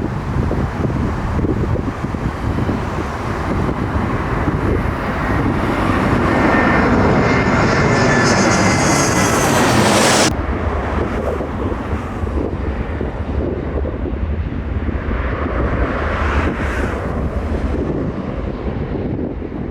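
Jet airliner's engines passing close, a loud rush with a high whine that builds for about ten seconds and then cuts off suddenly. Afterwards, wind noise on the microphone with a fainter swell of engine sound.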